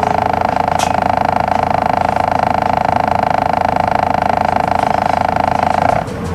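Hino Rainbow II bus's inline-six diesel idling while the bus stands still, a steady hum heard from inside the cabin, with a short sharp click about a second in. The steady hum cuts off suddenly near the end.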